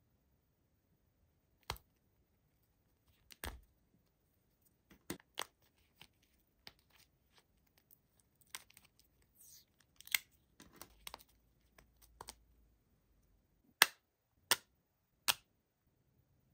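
Flexible fridge magnets being handled and peeled off their card backing: scattered light taps and soft peeling rustles, then three sharp clicks about two-thirds of a second apart as the magnets are set onto a metal sheet one by one.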